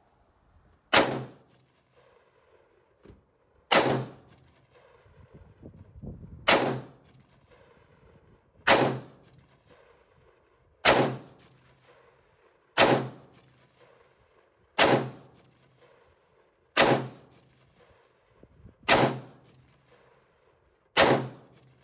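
Ten single shots from an AR-15 pistol, fired slowly and evenly about two seconds apart. Each is a sharp crack followed by a short echo dying away.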